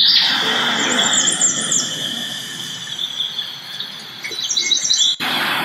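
High-pitched bird-like chirping over a steady high whistle, with bursts of chirps about a second in and again near the end, cut off abruptly about five seconds in.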